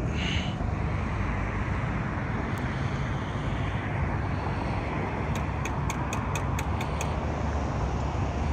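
Steady rumble of road traffic and idling vehicles, with a quick run of about eight light clicks about five seconds in.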